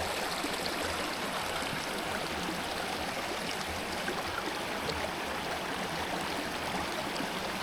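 Small mountain stream running over rocks: a steady rush of flowing water.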